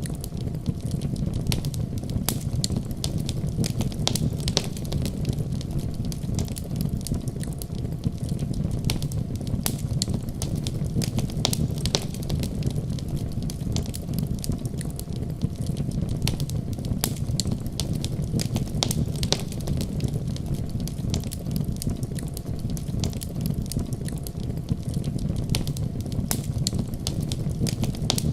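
Wood fire crackling, with frequent sharp pops at irregular intervals over a steady low rumble.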